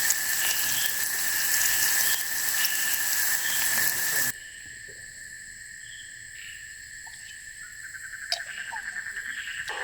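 Night chorus of crickets and other insects in a forest, with steady high-pitched chirring. For the first four seconds a loud hiss with small crackles lies over it, then cuts off abruptly, leaving the insects alone; near the end a fast pulsing trill joins in, with a single click.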